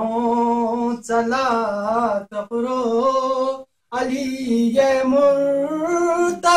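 A single voice singing unaccompanied: a devotional chant in praise of Ali. It goes in long, wavering held notes in four phrases with short breaths between them.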